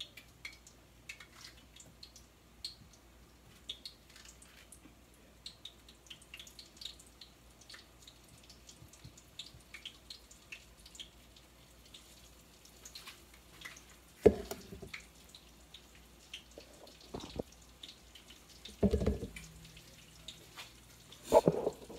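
Hot grease crackling and popping in a skillet as floured spareribs fry. A few knocks and handling bumps come in the last third, the first of them the loudest.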